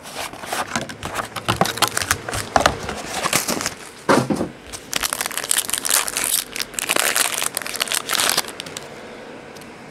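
Crinkling and crackling of a foil trading-card pack wrapper as it is handled and torn open, in dense irregular bursts that die down near the end.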